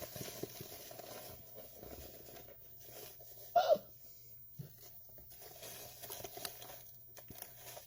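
Dry cake mix being shaken out of its plastic bag into a plastic mixing bowl, with soft crinkling and pattering. A brief, louder pitched squeak or cry comes about three and a half seconds in.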